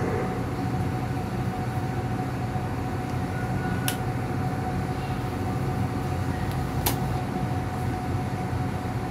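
Steady low mechanical hum with a faint steady whine, and two sharp clicks about three seconds apart as a cleaver slices a raw chicken breast on a wooden chopping board.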